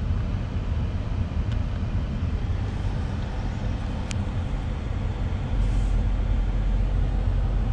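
Mercedes-AMG GT 63 S 4-door's 4.0-litre V8 idling, heard from inside the cabin: a steady low rumble with a couple of faint clicks. About five and a half seconds in the rumble steps up louder and deeper.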